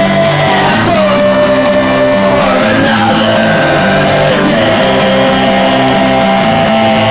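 Rock band playing a song: a singer holds long notes that slide from one pitch to the next over strummed guitar chords and bass.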